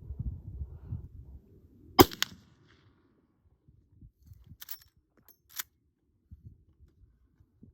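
A single rifle shot from a Henry Big Boy .44 Magnum lever-action rifle about two seconds in, followed a couple of seconds later by two sharp clicks.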